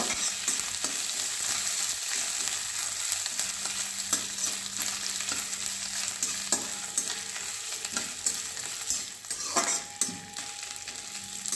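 Whole spices and grated ginger sizzling in hot ghee in a pan, with frequent small pops, while a spoon stirs them. The spices are being dry-roasted in the tempering (chhaunk) before water goes in.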